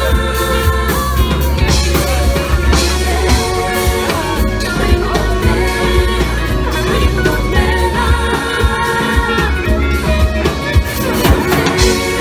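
Live street band playing upbeat African pop: vocals over electric guitar, a strong bass line and drums keeping a steady dance beat.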